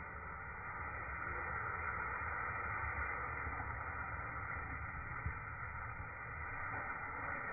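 Hot metal crucible held in a bucket of water, the water boiling against it with a steady hiss.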